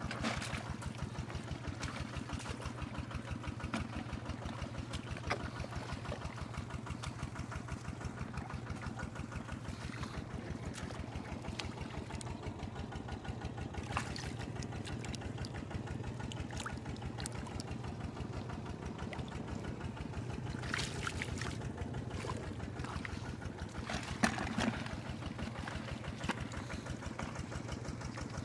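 A small engine running steadily with an even, fast pulse, off to one side, with a few splashes of hands scooping mud and water.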